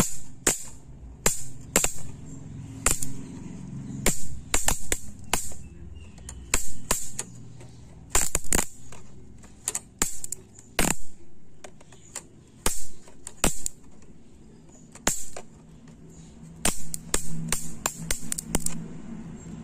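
Sharp snapping of high-voltage sparks arcing from a metal tool tip to the charged killing grid of a Bodycare electronic mosquito killer. The snaps come irregularly, dozens of them, some in quick clusters.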